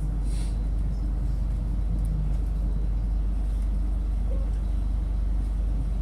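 Steady low rumble of a Melbourne suburban electric train running along the track, heard from inside the carriage. A short hiss comes about half a second in.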